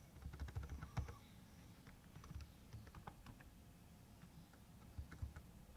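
Computer keyboard being typed on and backspaced: a faint, irregular run of key clicks, with the loudest keystrokes about a second in and near the end.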